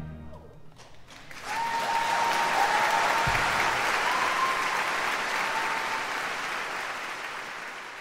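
Audience applauding. The applause swells about a second in and slowly fades out, with a few long held calls from the crowd above it.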